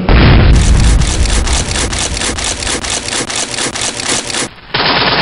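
Action sound effects: a heavy, deep crash at the start, then a fast, even rattle of sharp hits about five a second. The rattle breaks off briefly near the end and starts again.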